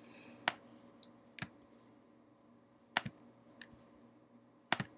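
Computer mouse clicking: single sharp clicks a second or two apart, with a quick double click near the end.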